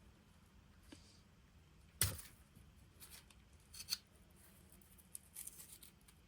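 Packaging being cut and handled: a sharp snip about two seconds in, a second near four seconds, then light rustling and small clicks.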